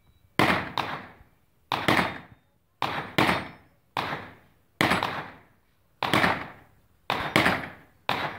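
Handgun shots echoing in an indoor shooting range: about a dozen sharp reports, many in quick pairs, each ringing out and dying away in the room before the next.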